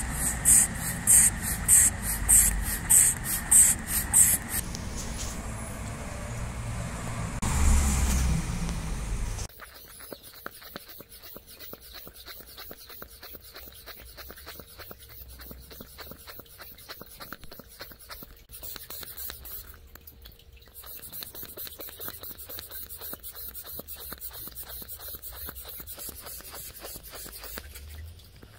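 Black rubber hand-bulb pump of an inflatable cervical neck traction collar being squeezed: rhythmic puffs of air about twice a second for the first few seconds, then a steadier rush of air. About ten seconds in this drops away to a faint hiss with light ticking.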